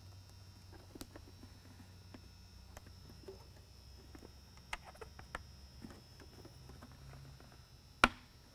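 Faint scattered clicks and taps of hands sliding the slider clips back into place on a Whelen Century Series mini lightbar, with one sharp click about eight seconds in.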